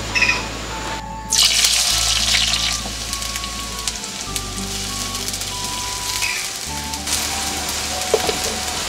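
Sliced red onions sizzling in hot oil in a pan. The sizzle bursts up loudly about a second in as they go into the oil, eases off, then swells again near the end.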